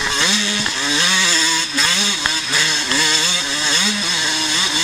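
Vintage motocross bike's engine running hard, its pitch climbing and then dropping back about once a second as the throttle is opened and shut through the track's turns and bumps.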